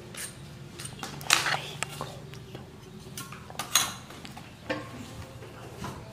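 Sharp clinks and knocks of a metal vegetable peeler and a knife being handled and set down in a plastic basket, the loudest about a second in and again near four seconds in.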